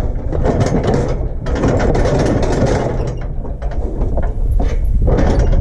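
Steel cattle squeeze chute rattling and clanking, a quick irregular run of metal knocks and clicks as the calf held in its headgate shifts against the bars, over a steady low rumble.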